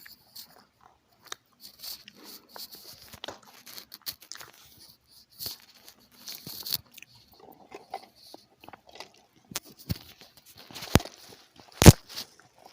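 Close-up eating sounds: crunchy bites and chewing, made of scattered small crackles and clicks, with two sharp, loud cracks a little under a second apart near the end.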